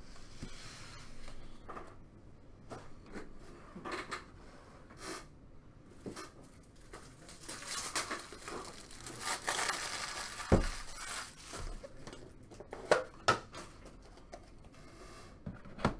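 Handling noises: scattered light clicks and knocks, with a few seconds of crinkling about halfway through and one dull thump just after it.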